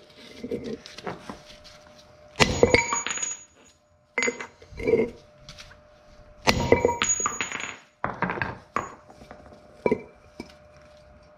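Rings out in five or six clusters of rapid metal-on-metal strikes: the old rear wheel bearing being driven out of the hub knuckle of a 2008 Ford Focus with a 34 mm socket as the driver.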